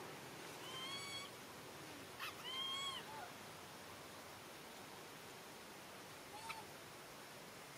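Baby macaque crying: two high, arching, meow-like calls in the first three seconds, and a short one about six and a half seconds in.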